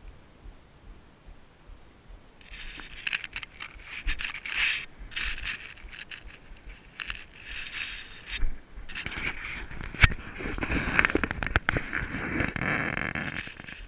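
Irregular rustling and scraping close to the camera as a climber moves down a granite slope, in bursts that grow louder and denser in the second half, with one sharp knock about ten seconds in.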